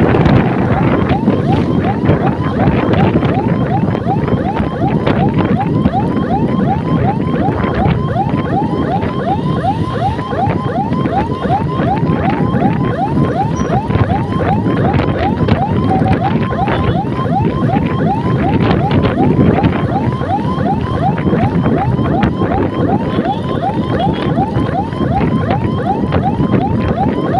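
Electronic siren in a fast yelp: short rising sweeps repeating about three times a second. Behind it, wind rushes over the microphone and there is the running noise of a moving motor scooter.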